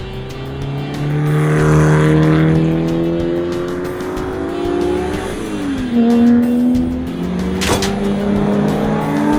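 Cartoon vehicle engine sound effect accelerating: the engine note climbs steadily, drops about five seconds in as if shifting gear, then climbs again. There is a sharp click near the end.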